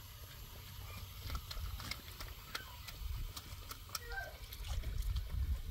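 Water from a garden hose splashing and trickling into a shallow concrete basin, with scattered small ticks and splashes over a low, unsteady rumble.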